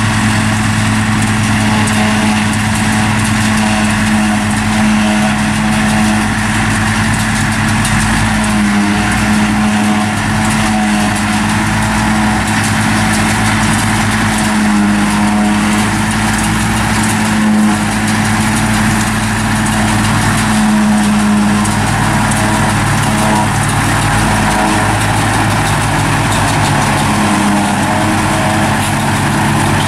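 Fortschritt E 281C self-propelled forage harvester and a Zetor Crystal tractor running side by side while chopping grass and blowing it into the trailer: a loud, steady diesel engine drone with the mechanical noise of the harvester working.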